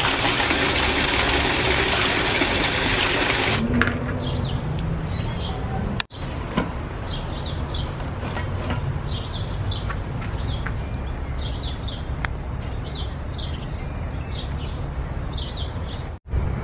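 A stream of water pouring into a metal bucket, a loud even rush, for the first three and a half seconds. Then birds chirping in short repeated calls over steady background noise.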